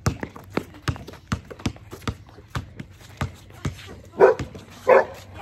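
A basketball dribbled on a concrete court, a sharp bounce every third to half second, then a dog barking twice near the end.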